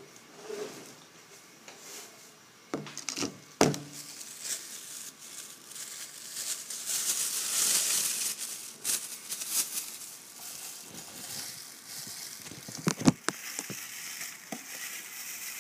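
Kangen pre-filter cartridge and its housing being handled: irregular knocks and clicks of plastic parts, with a stretch of crinkly rustling in the middle.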